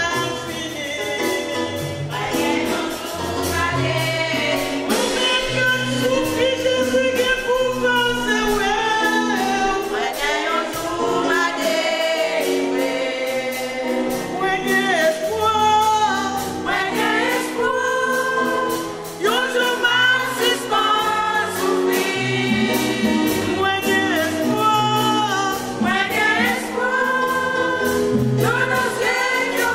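Women's church choir singing a gospel song in unison, a lead singer amplified through a microphone, over an instrumental accompaniment with a bass line moving beneath the voices.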